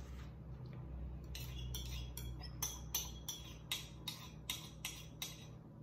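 A utensil scraping melted butter out of a small bowl into a bread maker pan, making a run of light clinks, about three a second, that starts just over a second in.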